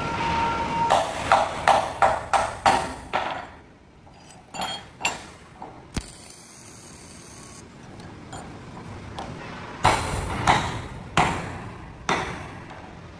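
Hammer blows on steel with a ringing ping: a quick run of about seven strikes in the first few seconds, a few lighter taps, then about four more blows near the end.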